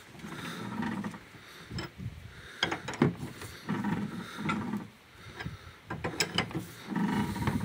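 Fiat Doblo's underfloor spare-wheel cable winch being wound down with the wheel-brace bar, letting the spare wheel down on its cable. Groups of metallic clicks come about every three seconds, with a low grinding between them.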